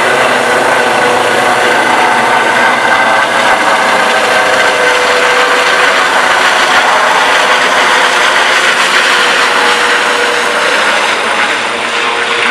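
Trauma helicopter flying low overhead and moving away: a steady turbine whine over the rush of the rotor, easing a little near the end.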